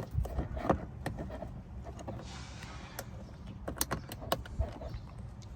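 Scattered clicks and knocks of plastic trim, clips and screws being handled and fitted back into place, with a brief rustle about two seconds in.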